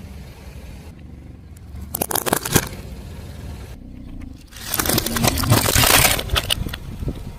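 Car tyre rolling over and crushing brittle objects, with the car's engine running low underneath. A short run of sharp cracks comes about two seconds in, then a loud, dense crackling crunch for about two seconds near the middle.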